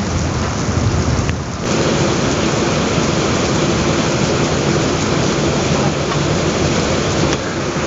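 Heavy rain pouring down during a thunderstorm, with thunder rumbling underneath; the sound dips briefly about a second and a half in, then comes back fuller.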